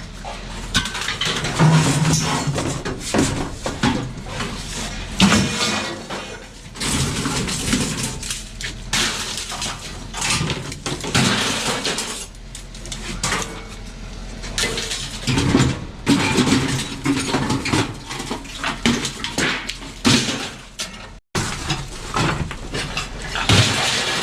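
Scrap metal clattering and clanging as pieces are handled and thrown onto a pile, a run of irregular knocks and crashes.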